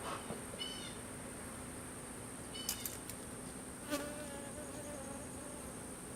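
Honeybees buzzing around an open Langstroth-style hive during an inspection, a steady low hum. A few short high chirps and a couple of sharp clicks come through over it.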